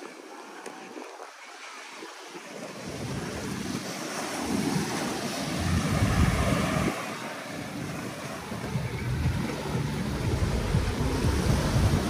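Small waves washing onto a sandy beach, with wind buffeting the microphone as an uneven low rumble from about three seconds in.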